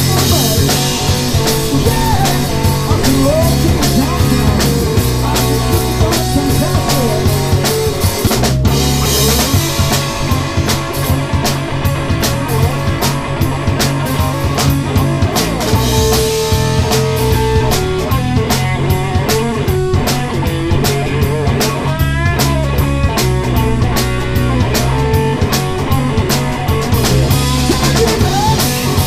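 Live rock band playing an instrumental passage: electric guitars with bent lead notes over a drum kit with cymbals and steady low notes underneath.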